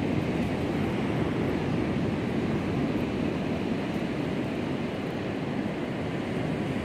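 Ocean surf on the beach, a steady even rush.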